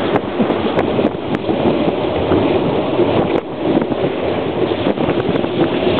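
Dog sled moving over snow: a steady rushing hiss and scrape from the runners, with wind buffeting the microphone.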